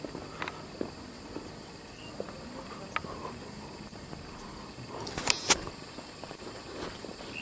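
Footsteps on stone and gravel with camera handling noise over a steady high hiss. Two sharp clicks come close together about five seconds in.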